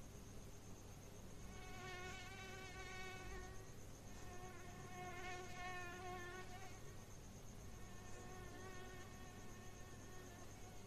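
Mosquito buzzing, a thin whine that swells louder twice as it passes close and then carries on more faintly.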